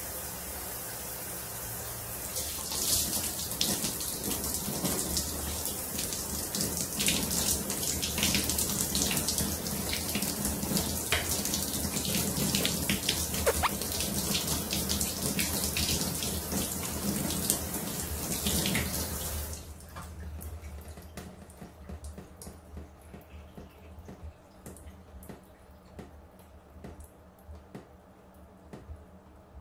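Shower spray from a handheld shower head running onto rubbing hands, a steady hiss full of splashing. It stops suddenly about two-thirds of the way through, leaving only faint drips.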